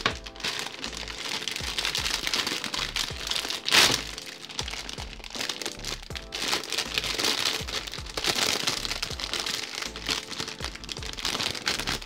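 Clear plastic bag crinkling and crackling as a plastic model kit's runners are pulled out of it and the bag is torn open, with one sharper, louder crackle about four seconds in. Background music plays underneath.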